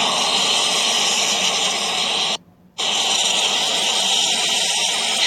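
ACDelco aerosol cleaner spraying in a steady hiss into a car starter motor, breaking off for a moment about two and a half seconds in and then spraying again.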